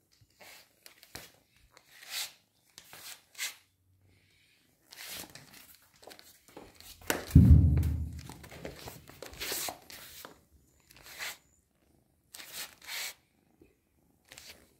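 Scattered short rustles and scrapes with one heavy low thump about seven seconds in.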